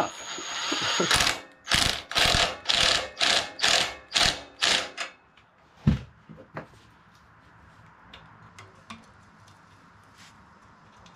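Ryobi cordless power driver run in a quick series of short bursts, about two or three a second, turning a homemade valve spring compressor on a Tecumseh OHV engine's cylinder head to take the valve springs off. A single knock follows about six seconds in, then only faint small clicks of hand tools on the valve gear.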